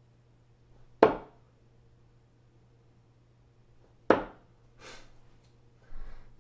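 Two steel-tip darts thudding into a Winmau Blade 5 sisal bristle dartboard, one sharp hit about a second in and another about four seconds in.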